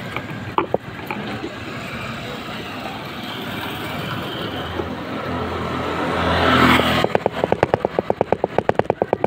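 A motorcycle passing close by, its engine noise swelling over several seconds and dropping away sharply about seven seconds in. Before and after it, a rapid, even ticking runs at about eight a second.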